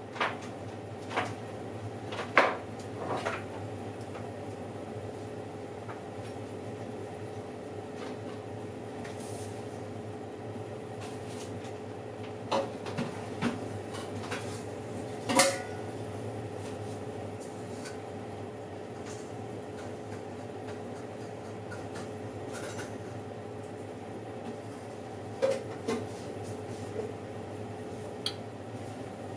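Steady hum of a running oven, with scattered sharp kitchen clinks and knocks in small clusters: a few near the start, a few around the middle, and a few more near the end.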